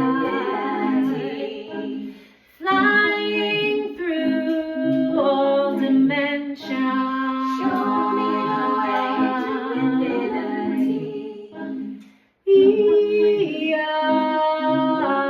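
Music: a woman singing a melody over a steady low drone, breaking off briefly twice.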